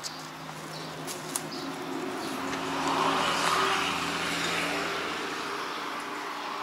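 A motor vehicle going by: a steady engine hum with a rush of noise that swells to a peak about three seconds in, then fades.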